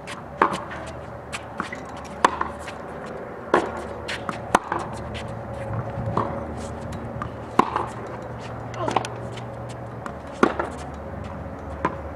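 Tennis ball being hit back and forth with rackets in a baseline rally on a hard court: sharp pops of racket strikes and ball bounces every second or two.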